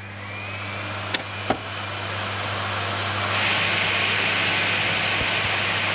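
Vacuum cleaner switched on, its motor coming up to speed with a steady low hum and rushing air that grows louder over the first few seconds. Two short clicks come about a second and a half in, and a brighter hiss joins at about three seconds.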